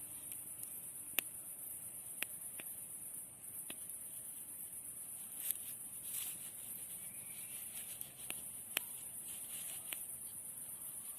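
A faint, steady, high-pitched chorus of insects, with a handful of sharp single clicks scattered through it.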